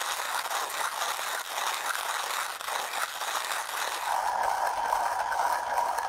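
Coffee beans being hand-ground in a Comandante X25 Trailmaster, its polymer body carrying a steady gritty crunching of beans through the burrs. About four seconds in, the grinding switches to a stainless-steel Comandante C40, and a steady ringing tone joins the crunching.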